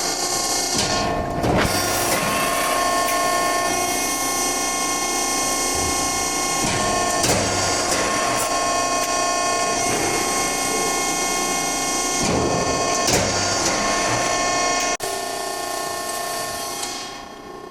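A 200-ton hydraulic press brake running: a steady machine whine made of several held tones, with a few brief louder moments and a sudden drop in level about fifteen seconds in before it fades near the end.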